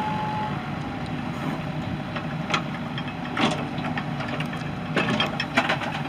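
Komatsu PC78MR excavator's four-cylinder turbo diesel idling steadily. A steady beep cuts off about half a second in, and a few sharp knocks come through later on.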